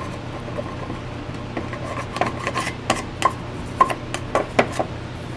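Hand-held metal gasket scraper scraping old gasket material off the cylinder's mating surface of a RedMax backpack blower engine: irregular light scrapes and clicks, over a steady low hum.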